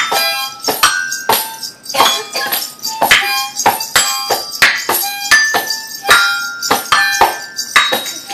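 Children's glockenspiel's metal bars struck irregularly with a mallet, each note ringing briefly, mixed with a tambourine slapped by hand and jingling, several hits a second in no steady beat. A small toy harmonica is blown along with it.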